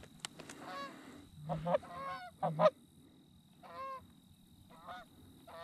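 A flock of Canada geese honking in flight: a string of short honks in bunches, some overlapping.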